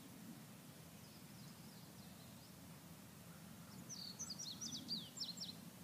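A small bird calling: faint high chirps early on, then a quick run of about a dozen short, falling high chirps near the end, over a faint steady outdoor background.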